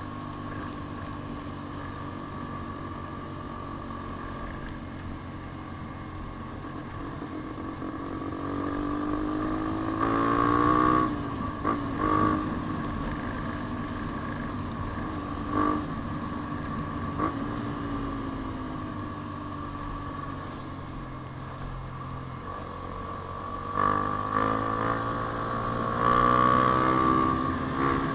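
Yamaha Sniper 150's single-cylinder four-stroke engine with an aftermarket JVT exhaust pipe, ridden on the road. It runs steadily, then revs climb and drop through gear changes about ten seconds in, and climb again near the end.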